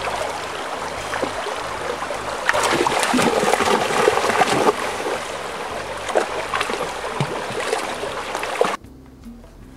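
A shallow rocky stream rushing over stones while Labrador retrievers wade and splash through it, with a cluster of louder splashes in the middle. The water sound stops abruptly near the end.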